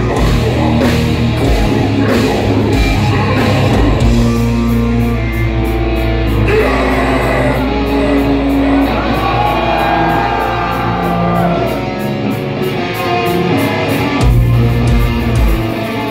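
Live heavy metal band playing in a club, electric guitars, bass guitar and drum kit, heard from the crowd. About four seconds in it drops to a held low bass note under a sung line and a steady ticking cymbal, and the full band crashes back in about two seconds before the end.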